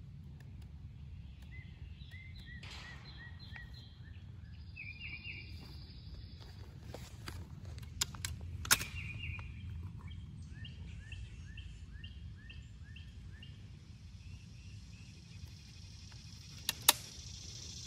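Sharp metallic clicks from the action of a Weihrauch HW97K underlever spring-piston air rifle as it is handled for cocking and loading: two clicks about eight seconds in and a quick pair near the end. Behind them a bird chirps in long rows of quick, evenly spaced notes.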